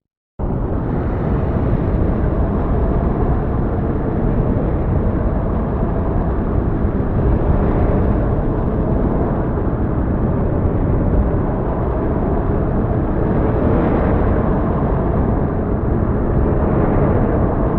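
Heavy storm ambience: a dense, steady, low rumbling wash of storm noise that cuts in suddenly after a brief silence, with slight swells now and then.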